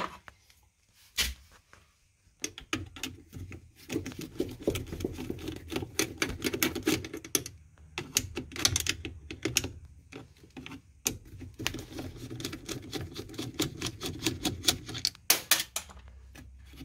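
Rapid, irregular clicking and scraping of a hand tool undoing the 5.5 mm screws on the carbon brush holder of a washing machine's drum motor. It starts with a single click about a second in, then runs almost without pause from about two and a half seconds in, with short breaks.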